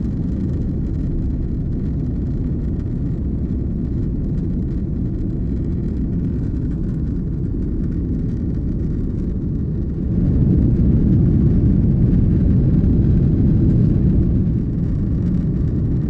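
Airbus A330-300's GE CF6 turbofan engines at takeoff thrust, heard from inside the cabin as a steady low rumble through the takeoff run and climb. It grows louder about ten seconds in and eases slightly near the end.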